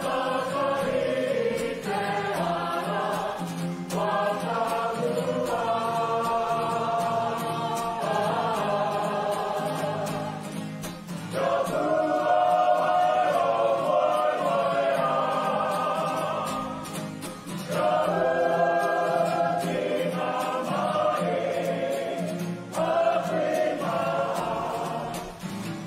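A group of voices singing together in Māori, in phrases a few seconds long with short breaks between them.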